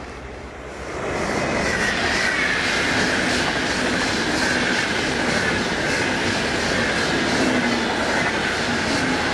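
Intercity train of a Class 101 electric locomotive and coaches passing close at speed: the noise rises sharply about a second in, then holds as a steady rolling rumble with a regular clatter of wheels over the rail joints and a high whine that slowly falls in pitch.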